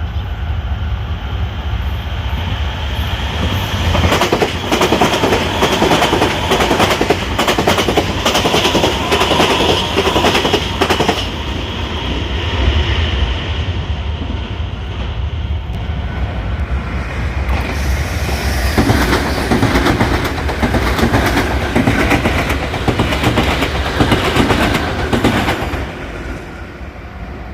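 Nankai electric commuter train passing close by over the level crossing, its wheels clattering over the rail joints. The clatter starts about four seconds in, eases a little midway, swells again, and drops away near the end.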